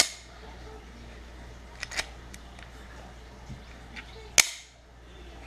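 Sharp metallic clicks of a Taurus PT140 .40-calibre pistol's slide and action being worked in the hands, a function check of the freshly reassembled gun: one click at the start, two close together about two seconds in, and a louder one about four and a half seconds in.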